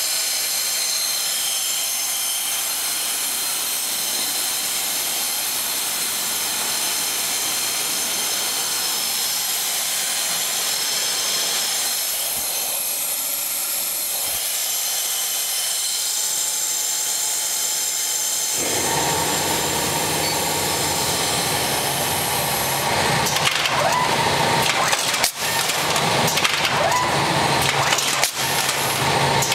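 2008 Sharp Packaging MAX IP automatic bagger running: a steady mechanical hiss with high whining tones, then a louder, lower hum that starts suddenly about two-thirds of the way through, broken by a couple of brief dips near the end.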